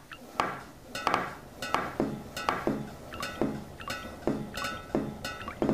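A dense jumble of overlapping metal and crockery clinks and knocks from many stacked copies of the same kitchen soundtrack, two or three strikes a second, some ringing on briefly.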